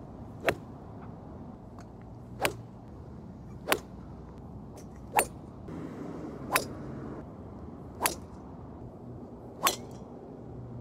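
Golf clubs striking golf balls: seven sharp cracks, one about every one and a half seconds.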